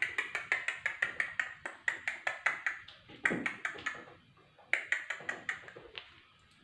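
Rapid run of sharp clicking taps, about eight a second, stopping about three seconds in and starting again for a second near the end.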